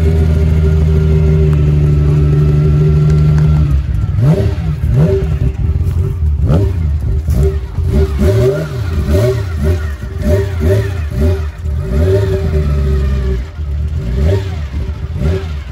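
Ferrari 275 GTB's V12 engine idling steadily, then from about four seconds in revved in a string of quick blips, the pitch rising and falling with each one.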